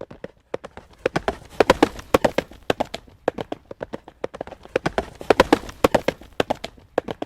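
Horse hooves clip-clopping at a trot on a hard road, a quick run of sharp strikes that grows louder twice and fades again between.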